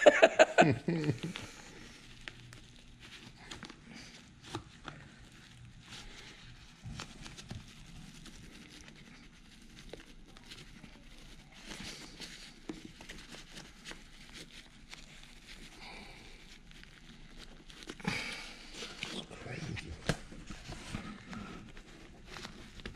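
Faint rustling and crinkling of fabric and plastic with scattered small clicks, as hands work a folded, compressed car airbag cushion out of its plastic housing; a louder rustle comes about eighteen seconds in.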